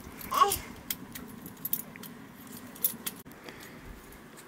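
Light, irregular metallic clinks and ticks from a metal rod and utensils at a wood-fired stove, with a short falling squeak about half a second in.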